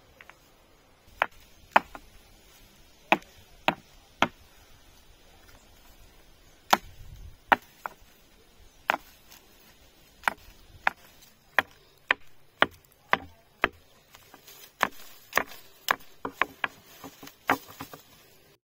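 Wood being chopped with a hand-swung blade: sharp single strikes at an irregular pace, mostly about a second apart, coming quicker in the second half.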